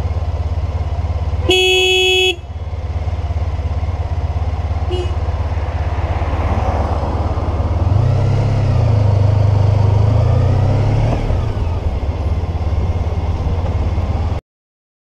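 Motorcycle engine idling in traffic while a vehicle horn sounds loudly for almost a second about a second and a half in, with a short faint toot around five seconds. From about eight seconds the engine gets louder as the motorcycle pulls away, and the sound cuts off suddenly near the end.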